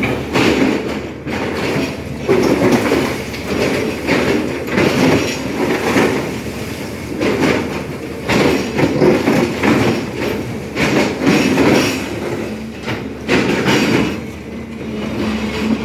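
SANY excavator running hard while it digs, its diesel engine and hydraulics surging and easing every second or two, with irregular metallic clanks and knocks.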